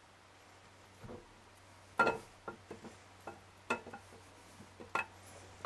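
Steel camshaft being slid into a Gen 4 LS V8 block, its lobes and journals clinking against the cam bearings: a handful of sharp metallic clinks with a short ring, the loudest about two seconds in. A low steady hum runs underneath.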